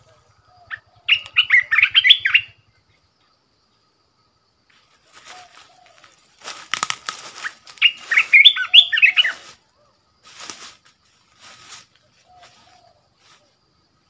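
A caged bulbul singing close by in two short bursts of quick notes that rise and fall, about a second in and again from about six and a half seconds. Short rustling flutters sound between and after the song.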